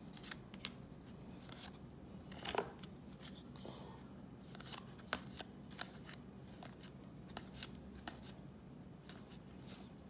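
Baseball trading cards being handled and flipped through one at a time: faint, irregular soft clicks and slides of card stock, about two a second.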